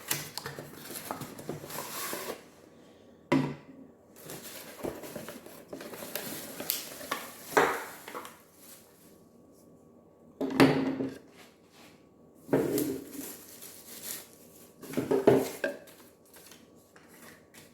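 A snow foam cannon being unboxed: its packaging rustling while hard parts clink and clack against each other and the table, with a few sharper knocks.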